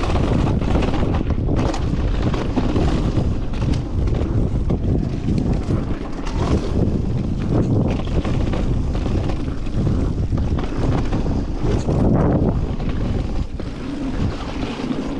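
Wind buffeting the microphone of a camera riding on a mountain bike going down a dirt trail, with frequent knocks and rattles from the bike over bumps.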